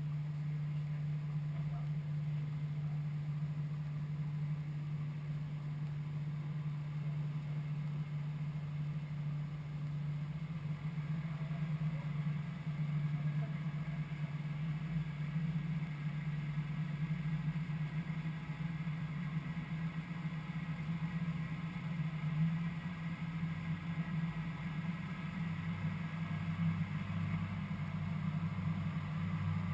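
Light aircraft's piston engine and propeller running steadily at idle on the ground, heard from the cockpit; a deeper tone joins in near the end.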